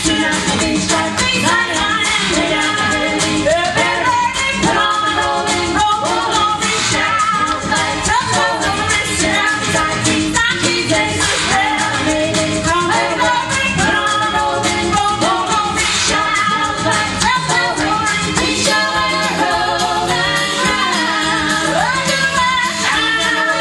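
Gospel vocal group singing over an instrumental accompaniment with percussion.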